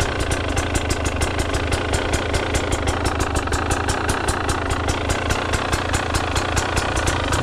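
Husqvarna TE 300 PRO two-stroke enduro motorcycle engine idling steadily, with an even pulse several times a second.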